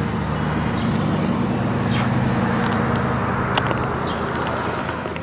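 A motor vehicle's engine running steadily, a low hum with a couple of short clicks about two and three and a half seconds in.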